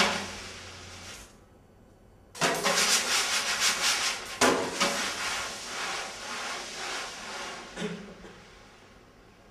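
Hand percussion: a soft strike that fades, then two long swishing, rattling passages that each start suddenly and die away, with another light hit near the end.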